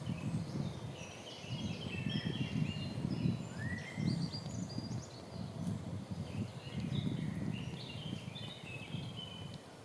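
Small songbirds chirping and trilling in short, overlapping phrases, over a steady run of low, dull footfalls on the forest floor about once a second.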